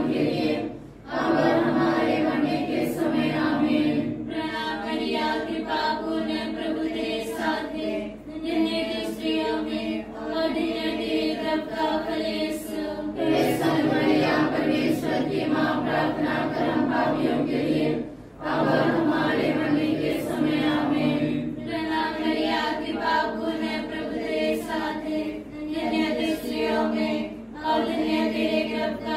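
A group of voices singing a devotional hymn in long sustained phrases, with brief breaks about a second in and again just past halfway.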